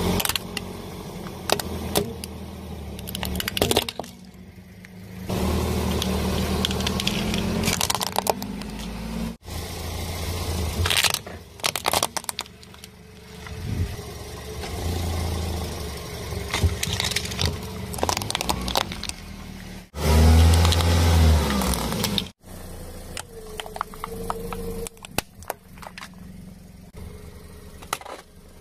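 A car tyre rolling onto plastic toy cars and crushing them: repeated cracking, snapping and crunching of plastic over the low rumble of the car moving, broken by abrupt cuts.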